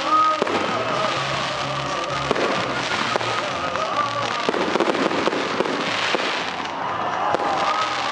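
Aerial fireworks shells bursting in quick succession, with repeated bangs and crackling, and music playing alongside.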